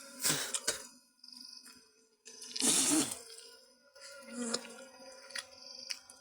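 Honeybees buzzing around a broken-open wild nest, a steady low hum, with two bursts of rushing noise, the louder about three seconds in.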